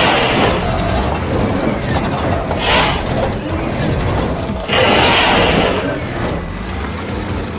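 Mechanical sound effects for an animated machine: a vehicle engine running under mechanical whirring and clanking as its digger arm moves. The sound swells at the start and again about five seconds in.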